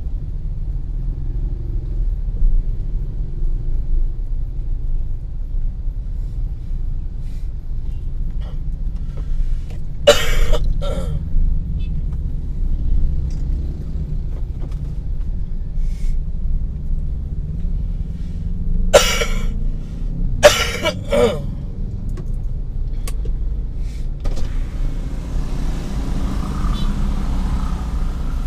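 Steady low rumble of a car, heard from the vehicle, broken by two short harsh noisy bursts about ten seconds in and three more around nineteen to twenty-one seconds in.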